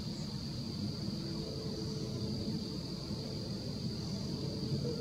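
Night-time outdoor ambience: a steady high-pitched insect trill, like crickets, over a constant low rumble.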